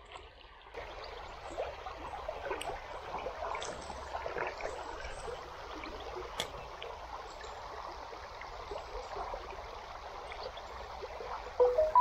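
Water of a small river running steadily, coming in about a second in, with scattered light ticks.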